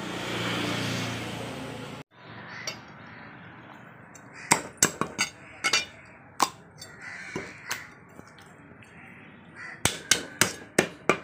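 Butcher's knife chopping through rabbit carcass onto a wooden chopping block: a few sharp knocks from about four and a half seconds in, then a quick run of about seven near the end. Before that, a steady rushing noise stops abruptly about two seconds in.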